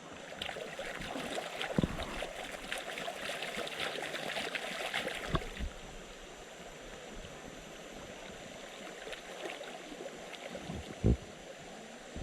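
River water running and splashing close by, with crackly splashes heaviest during the first half. A few dull low knocks come about two seconds in, around five seconds in and near the end.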